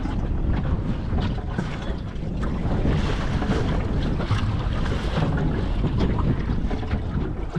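Wind buffeting the microphone, with the sea washing around a small boat on open water.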